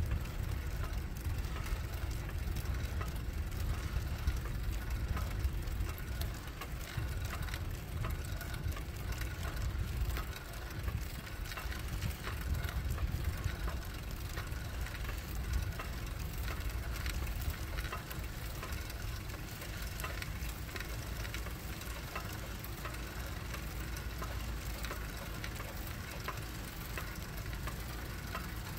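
Low steady rumble of a slow-moving vehicle running alongside, with many faint light ticks scattered throughout.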